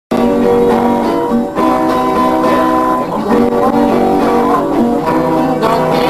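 A viola caipira and a nylon-string acoustic guitar playing together, plucked and strummed, in an instrumental passage with no singing.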